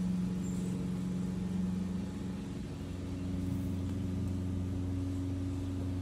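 A steady, low mechanical hum of a running motor, several tones held at once without change.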